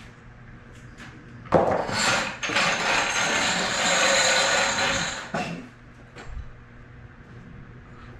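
Steel-wheeled floor jack pulled by its handle across a concrete garage floor, a rattling scrape that starts suddenly about a second and a half in and lasts about four seconds.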